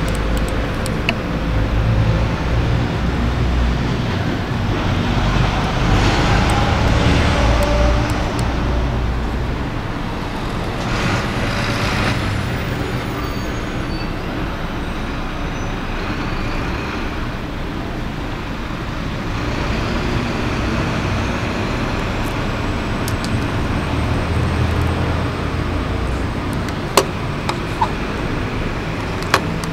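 Steady low background rumble and hiss, like road traffic noise, with a few sharp clicks near the end.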